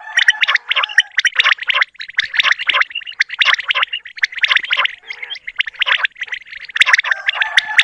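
Quails calling: a dense, rapid chattering of many overlapping calls, with a few brief lulls.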